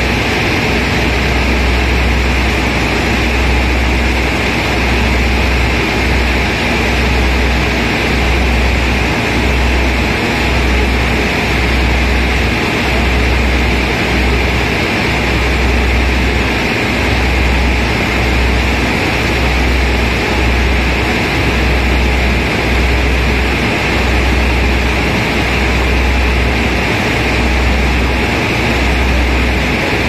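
Steady rushing noise of a ship under way, its engine and churning wake blending into one roar. Low gusts of wind buffet the microphone, swelling and dropping every second or so.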